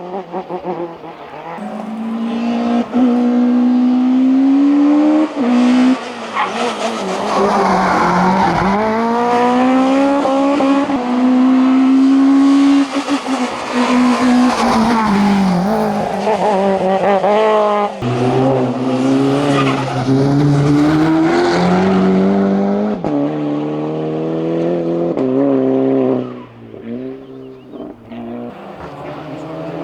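Competition car's engine at full throttle on a hillclimb, revving hard with several sharp drops in pitch at gear changes, loud as it passes close and fading away near the end.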